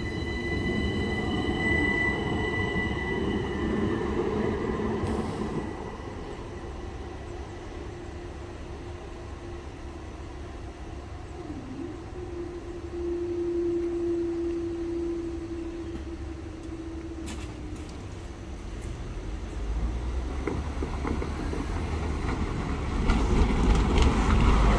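A Southeastern electric multiple-unit train rumbles over the crossing with a high whine that fades out after about five seconds. A steady hum follows for several seconds. Near the end a diesel double-decker bus pulls across and passes close by, its engine and tyres rising to the loudest sound.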